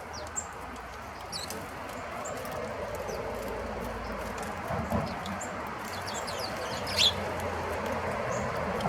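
Small wild birds at a feeder chirping: short high chirps scattered throughout, with one louder call sweeping downward about seven seconds in, over a steady background hum.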